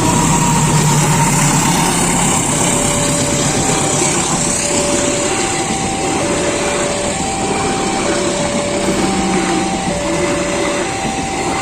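Railway level crossing warning alarm sounding two alternating notes, high then low, each about a second long, over the noise of a passing train.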